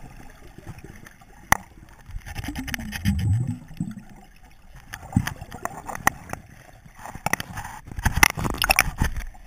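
Water sloshing and gurgling around a submerged action camera, with scattered sharp clicks and knocks. There is a low, muffled gurgling rumble about three seconds in and a quick run of clicks near the end.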